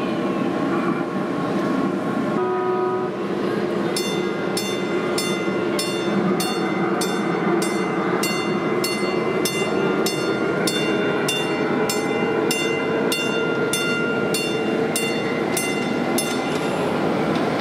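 Ride-on miniature diesel locomotive sounding one short horn blast, then ringing its bell steadily, about two strokes a second, for some twelve seconds, over steady background noise.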